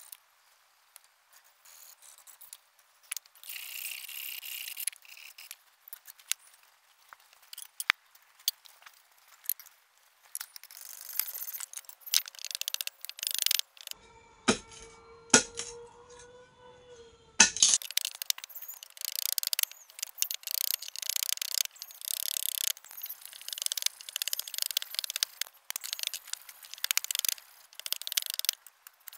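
Hand blade shaving and chopping wood in quick, irregular scraping strokes. About halfway through comes a few seconds of sharp knocks over a held ringing tone.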